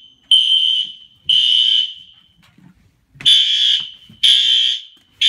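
Fire alarm horn strobes, among them a System Sensor P2RL, sounding in drill mode with a loud, high-pitched electronic horn. They sound in the temporal-3 evacuation pattern: groups of three half-second blasts about a second apart, with a longer pause of about a second and a half between groups.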